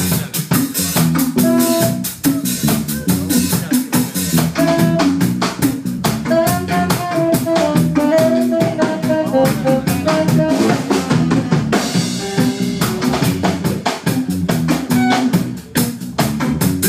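Live band playing: a drum kit keeps a busy, driving beat over bass guitar, and a wavering melodic line comes in over it about six seconds in.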